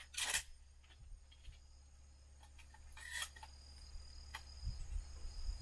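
Faint clicks and rustling, with two short louder rustles near the start and about three seconds in, over a steady low hum.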